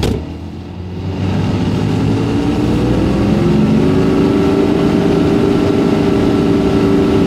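A motor vehicle's engine running, its pitch rising over the first few seconds and then holding steady.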